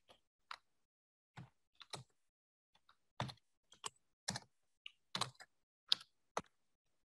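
Typing on a computer keyboard: a string of single key clicks at an uneven pace, some with a dull low thud as the keys bottom out.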